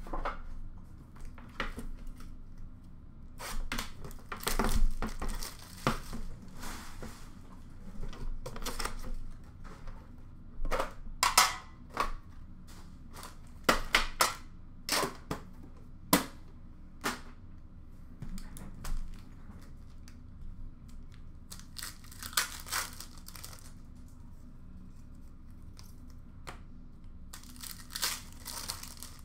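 Foil trading-card packs being torn open and their wrappers crinkled by hand, in irregular clusters of sharp rips and rustles, with quieter handling of cards between.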